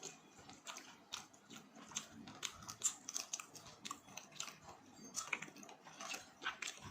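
Close-miked chewing and biting of food, with many short, crisp, irregular crunching clicks.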